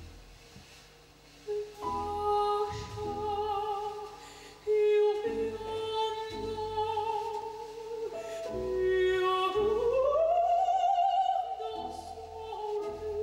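Female operatic soprano voice singing sustained notes with vibrato over grand piano accompaniment. The voice comes in about two seconds in, and about ten seconds in it slides up to a long, high held note.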